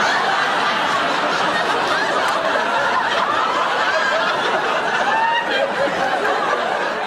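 Studio audience laughing: many people at once in a steady, continuous wash of laughter.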